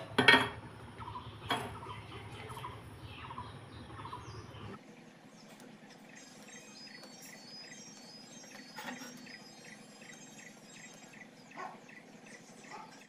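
Leafy plant stems being stripped and peeled by hand: soft rustling and snapping, with a few sharp knocks in the first second and a faint series of short chirps in the background from about five seconds on.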